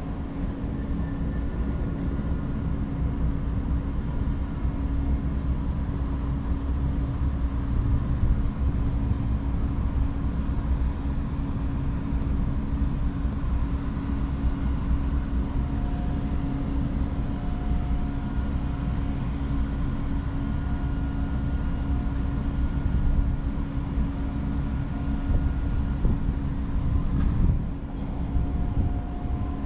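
Wind rumbling on the microphone on a cruise ship's open upper deck, over a constant machinery hum.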